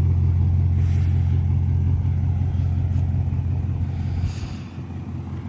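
Audi S8's twin-turbo V8, fitted with catless downpipes and a full exhaust, idling with a steady low rumble that gets quieter about four seconds in.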